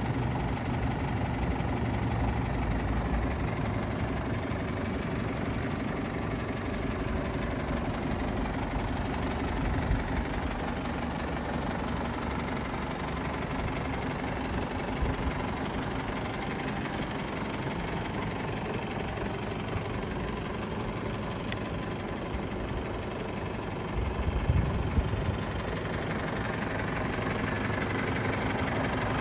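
A 2016 DAF LF210 truck's four-cylinder diesel idling steadily, with a few brief knocks about 24 seconds in.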